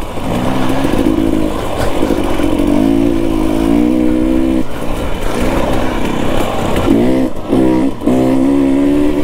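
KTM 250 XC-W TPI two-stroke dirt bike engine being ridden, revving up and easing off over and over, with a few quick throttle blips near the end.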